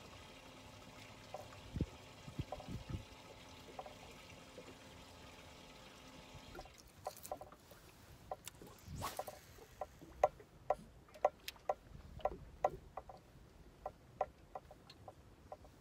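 A steady electric hum, like a bow-mounted trolling motor running, cuts off suddenly about seven seconds in. After it come irregular light slaps and ticks of water lapping against the boat hull.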